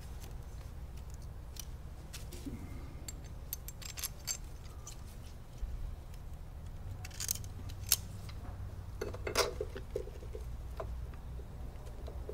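Small metal clicks and clinks of an aluminium spin-on oil filter adapter and its bolts being handled and fitted against a motorcycle engine's oil pump, with a few sharper clacks near the middle, over a low steady hum.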